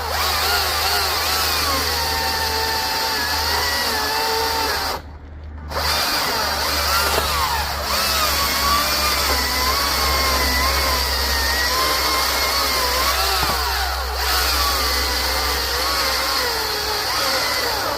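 Greenworks Commercial 82V battery-electric chainsaw running at full speed, with a high electric whine whose pitch wavers as it cuts under load. It stops briefly about five seconds in, then runs on.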